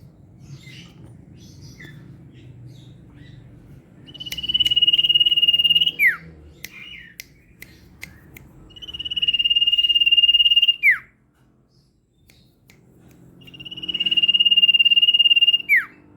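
Common iora (cipoh) singing in its fast 'ngetir' style: three long, rapid trills on one high pitch, each about two seconds long and each ending in a quick falling note, with a few soft chirps between them.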